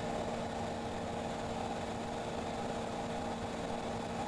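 Steady drone of a Cessna 172's engine and propeller inside the cockpit.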